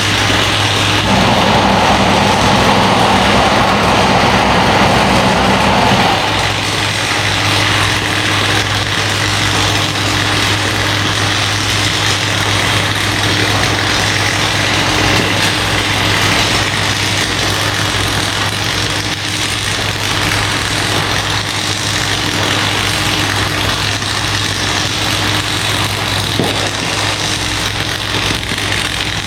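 Steady mechanical drone of an engine-like machine running, with a louder rushing noise on top for the first six seconds or so.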